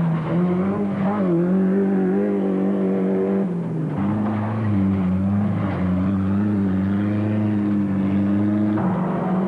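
Off-road race car engine running hard and steady. Its note dips briefly about four seconds in and shifts again near the end.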